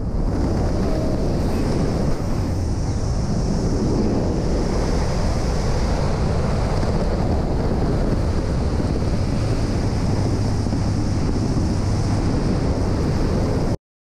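Steady wind rushing over a skydiver's action-camera microphone during the descent. It cuts off suddenly near the end.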